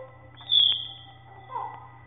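Pet bird whistling: one loud, high whistle about half a second in, then a short, lower call that falls in pitch a second later.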